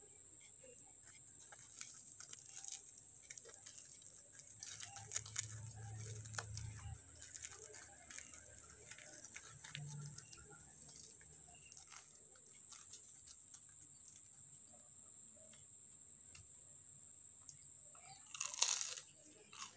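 Faint crunching and crackling of crisp, breadcrumb-coated fried bread being handled and torn open, with a louder crunch near the end. A faint steady high-pitched whine runs underneath.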